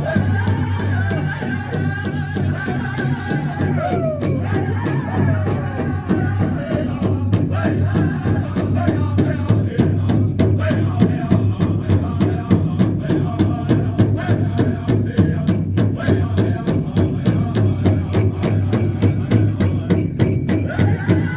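Hoop dance song from a powwow-style drum group: a big drum beaten in a steady, even rhythm, with voices singing a gliding, high-pitched melody above it.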